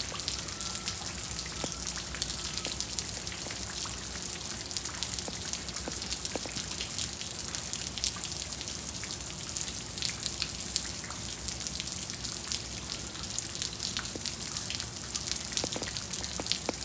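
Steady freezing rain pattering on ice, slush and standing water, with a dense scatter of small drop ticks.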